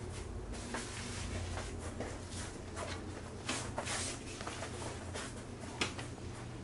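Handling noises from a stand garment steamer: scattered clicks, knocks and short rustles as the steamer head is taken up and set against a hanging shirt, the busiest stretch about halfway through and a sharp knock near the end, over a steady low hum.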